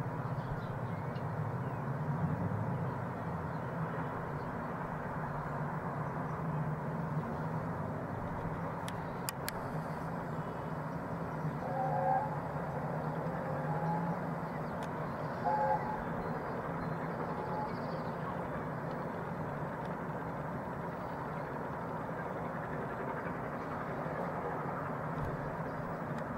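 Peppercorn A1 Pacific steam locomotive Tornado working away in the distance: a steady low rumble. Two brief tones come a few seconds apart about halfway through.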